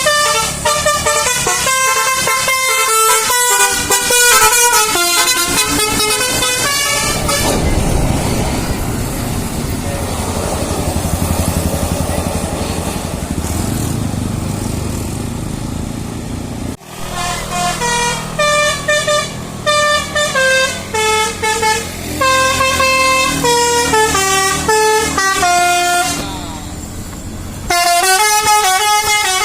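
Bus basuri telolet horn, a set of several air-horn trumpets, playing quick melodic runs of loud, stepping notes. After about seven seconds it gives way to about ten seconds of steady noise without notes. The horn tune starts again just after the middle, and once more near the end.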